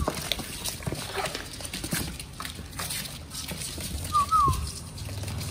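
Puppies scrabbling and tussling in a cardboard box, their paws and claws scratching and tapping on the cardboard. A puppy gives a brief high squeak about four seconds in.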